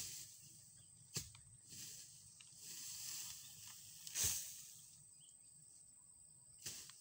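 Dry grass and brush rustling and crackling as it is pulled up and thrown aside by hand, with a few sharp clicks; the loudest rustle comes about four seconds in as an armful is tossed.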